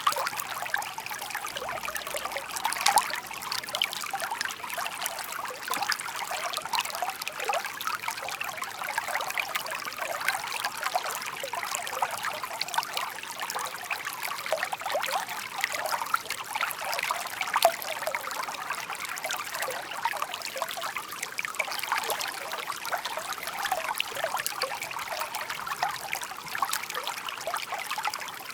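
Shallow, babbling stream flowing over stones: steady trickling and burbling water with many small splashes.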